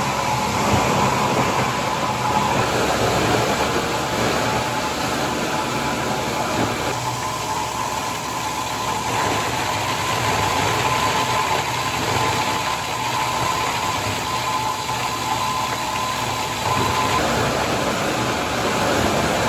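Plastic bottle crushing machine running, a steady mechanical drone with a constant whine.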